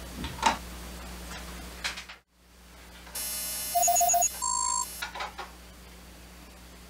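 Hard plastic clicks and knocks as a toy radar replica is set into its plastic stand, then after a cut, a short burst of electronic sound: a buzzy tone, four quick beeps, and a steady higher beep, followed by a few faint clicks.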